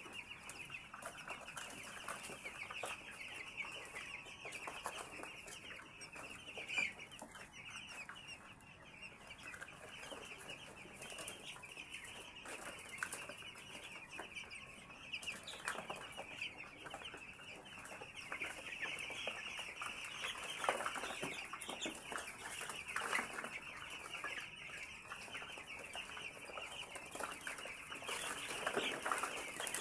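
A crowd of 11-day-old chicks peeping continuously, a dense chorus of high chirps, with scattered short taps and rustles among it.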